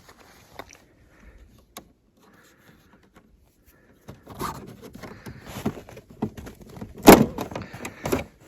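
Snowmobile side panel being unfastened and pulled off: a few faint clicks, then irregular plastic rattling and handling from about four seconds in, with a sharp knock about seven seconds in and a smaller one a second later.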